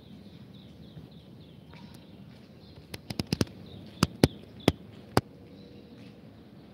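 A quick run of about nine sharp clicks a little before halfway in: five close together, then four more spaced out. Faint high chirping continues underneath.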